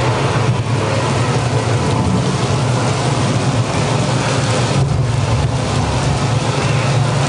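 Simulated tropical rainstorm in an indoor jungle enclosure: a steady rush of water falling and spraying onto foliage and a pool, over a constant low rumble.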